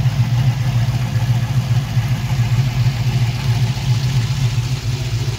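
The 6.0-litre LQ4 V8 with Z06 Corvette heads, swapped into a 1986 Pontiac Grand Prix 2+2, idling steadily.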